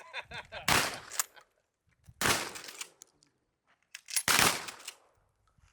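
Three shotgun blasts, spaced about one and a half to two seconds apart, each followed by a trailing echo.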